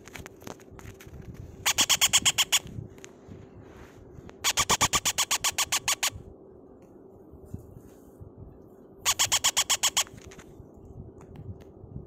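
Newly hatched parrot chick cheeping in three bursts of rapid, evenly spaced chirps, about ten a second, the middle burst the longest. Between the bursts there is faint rustling of shredded paper.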